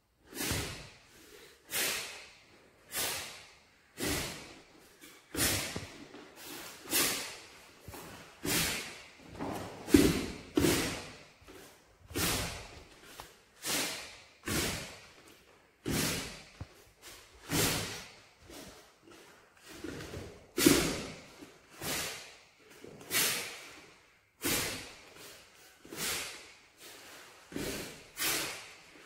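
Sharp exhaled breaths and the snap of a Taekwon-do uniform, one with each block or strike of a pattern, about one a second, a few louder than the rest.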